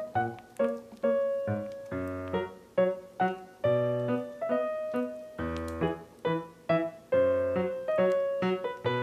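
Background piano music: a gentle melody of single struck notes, about two to three a second, each fading away, over low bass notes every second or two.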